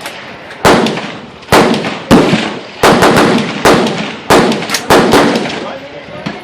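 AR-15 rifle firing a steady string of about eight shots, roughly one every two-thirds of a second, each shot followed by a long decaying echo.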